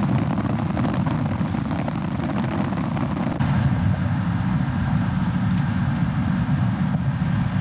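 A car on the move: a steady low rumble of engine and road noise, a little louder from about three and a half seconds in.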